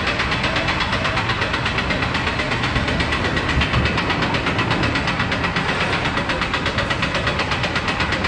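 Steel spinning wild-mouse coaster car being hauled up the chain lift hill: a steady mechanical rattle with fast, evenly spaced clicks from the lift chain and anti-rollback.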